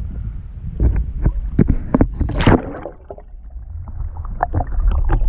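Lake water knocking and splashing against an action camera held at the surface, then a loud splash about two and a half seconds in as it goes under. After that the sound is muffled underwater rumble with dull knocks.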